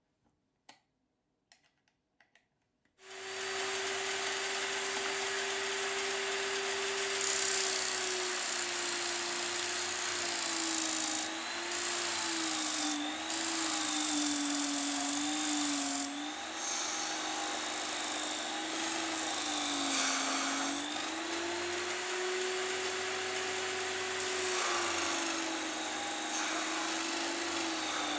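Electric drill driving a disc sander: a few light clicks, then the motor starts about three seconds in and runs steadily with a whine. The pitch sags and recovers several times as a plywood piece is pressed against the sanding disc and loads the motor, over a hiss of sanding.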